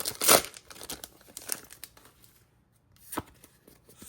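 A foil Pokémon booster pack being torn open, a loud rip near the start followed by crinkling of the wrapper, then a single sharp click near the end.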